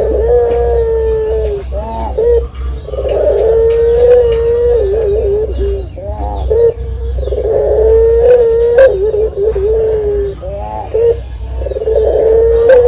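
Caged Barbary dove (puter) cooing: long drawn-out notes held at one pitch, each broken off by a short rolling warble, about four times over. This is the prized long coo used as tutor and lure audio for other doves.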